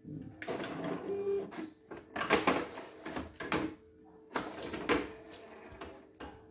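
Irregular plastic clicks, knocks and rustling of hands unclipping the embroidery hoop from an embroidery machine's carriage and lifting it off, the loudest clatter about two seconds in and another near five seconds.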